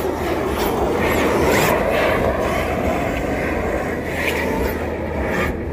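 Radio-controlled drift cars running on the track just after the start of a heat: a steady scrubbing whir, with a few short high whines rising and falling.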